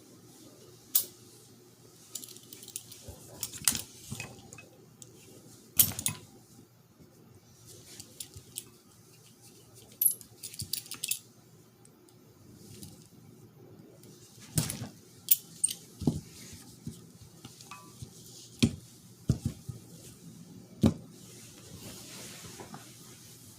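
Irregular clicks, clinks and knocks of small metal and plastic shifter parts and hand tools being handled as a manual shifter assembly is taken apart. The louder knocks fall about a second in, around six seconds in, and several times in the second half.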